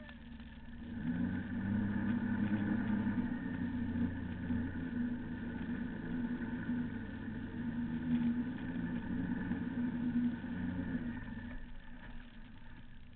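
A motorboat engine running steadily under way, with rushing water from the wake beneath it. It swells about a second in and fades near the end.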